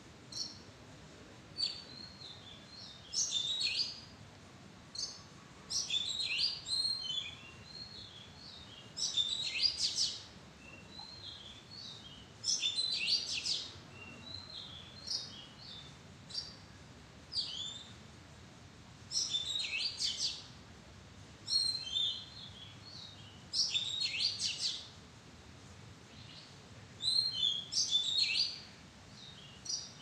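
Oriental magpie-robin singing: short, varied phrases of high whistled and warbled notes, each about a second long, repeated every couple of seconds.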